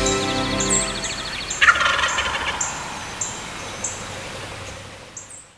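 A wild turkey gobbles once, a rapid rattling call, about a second and a half in, as music fades out. Short high chirps repeat behind it, and everything fades away near the end.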